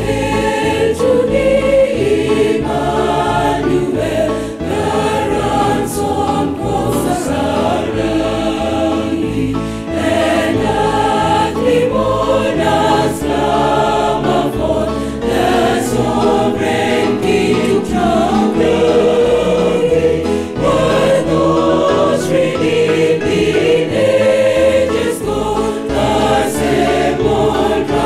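Church choir singing a gospel hymn in harmony, with low notes that change in a steady pulse underneath.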